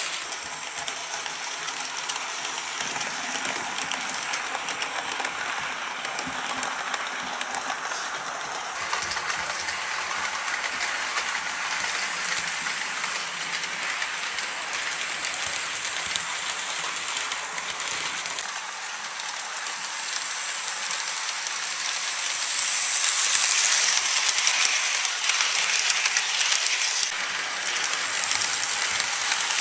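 HO scale model passenger train running on the layout track: the steady rolling rattle of wheels on rails and the running locomotive, growing louder for a few seconds past the two-thirds mark as the train passes close.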